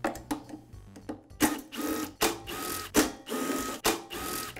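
Cordless brushless drill-driver spinning out the screws that hold the recoil starter housing on a Husqvarna backpack blower. After a few light clicks it runs in several short whining bursts, one after another.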